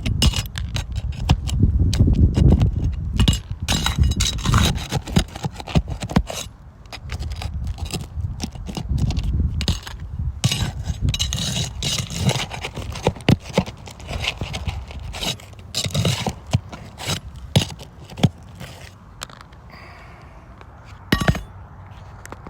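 Repeated scraping and scattered sharp clicks of hand work on an asphalt shingle roof as a damaged shingle is worked loose for removal.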